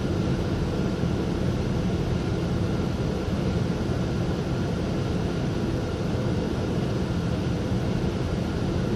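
Cabin running noise of a GYSEV Ventus passenger train in motion: a steady low rumble of the wheels on the rails, with a faint steady hum above it, heard from inside the passenger compartment.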